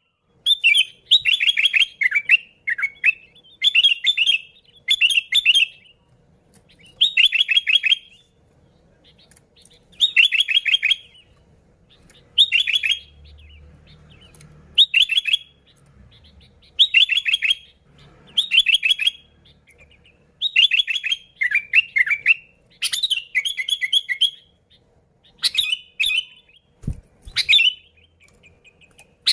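Sooty-headed bulbul singing in lively, repeated phrases: short bursts of quick chirping notes, about one every second or two, with brief pauses between them.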